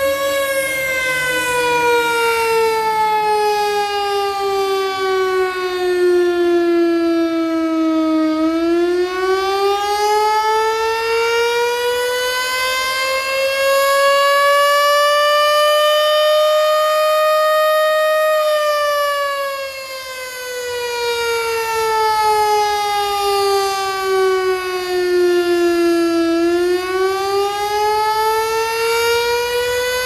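Rooftop outdoor siren activated for a fill-in call, sounding a slow wail: its pitch falls for about eight seconds, climbs for about ten and holds briefly, falls again, and starts climbing near the end. Its loudness dips briefly about two-thirds of the way through.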